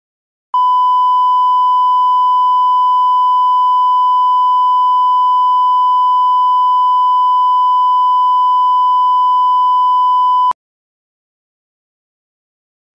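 A single loud electronic beep held at one steady pitch for about ten seconds. It starts about half a second in and cuts off abruptly, with dead silence on either side.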